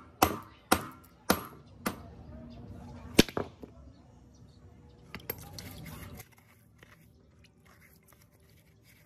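Hammer blows on a wooden block: four strikes about half a second apart, then a louder one about three seconds in. Later only faint clicks of metal parts being handled.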